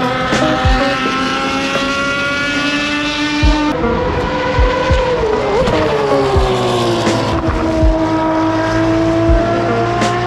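Ferrari race car engines running hard on the circuit: a sustained, high-revving engine note that drops in pitch about halfway through and then holds steady.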